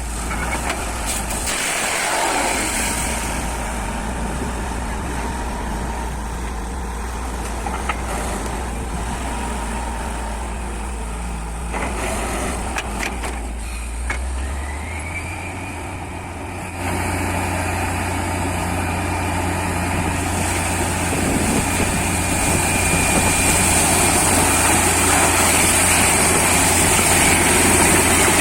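Heavy diesel engine of a truck-mounted borewell drilling rig running steadily. About halfway through a rising whine comes in and holds, and shortly after the whole sound steps up louder.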